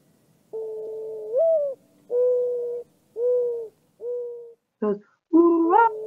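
Mourning dove song: a soft, low coo that rises and then falls in pitch, followed by three shorter, level coos.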